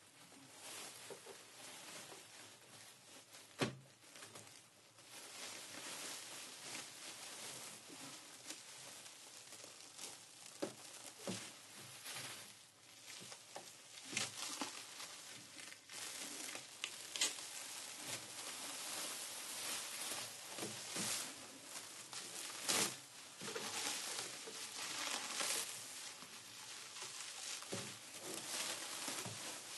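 Plastic sheeting crinkling and crackling as it is pressed, pulled and rubbed, with a few sharper, louder cracks about four seconds in, in the middle and past two-thirds of the way through.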